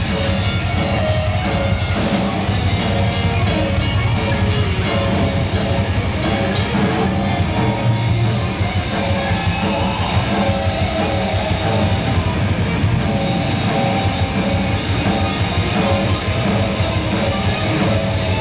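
Live rock band playing loudly and without a break: electric guitars over a drum kit.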